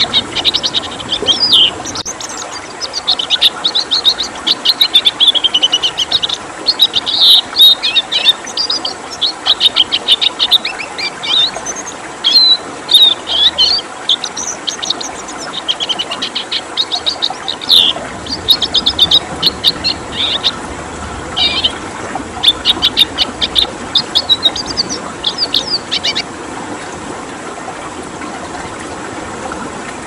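Red siskin singing rapid runs of short, high notes, falling silent a few seconds before the end, over a steady rush of flowing water.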